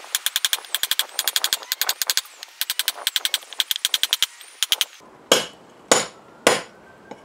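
Heavy hammer striking a bolster chisel in rapid, ringing taps, scoring a line across a slab to split it. About five seconds in, the taps give way to three slower, heavier blows with a deeper thud, which the worker takes as the sign that the slab has cracked.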